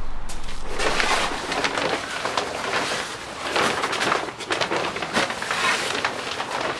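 Fabric cover rustling and swishing in irregular surges as it is lifted up and pulled off a crane, with a few light footsteps and clicks. The tail of electronic music fades out about a second in.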